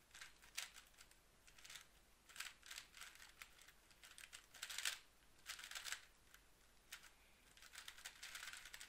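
GAN 356 X magnetic 3x3 speedcube being turned fast during a solve: faint, irregular bursts of quick plastic clicks and clacks as the layers snap round.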